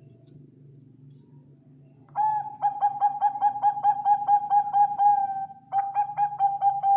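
Zebra dove cooing. About two seconds in, a long run of rapid staccato coo notes on one pitch begins, about five a second, breaking off briefly near the end before a second run. A faint low hum sits underneath.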